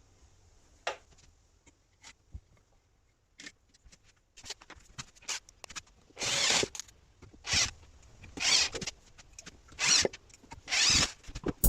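Scattered faint clicks and taps, then five short rasping strokes, about one a second, in the second half, like a hand tool scraping or sawing across a workpiece.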